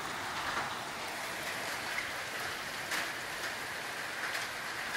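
Steady storm rain falling on concrete and walls, with a few sharp taps standing out.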